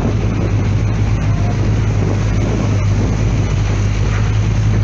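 Steady low drone of a 1,100-foot container ship's engines as it moves close past the quay, over a continuous rushing noise.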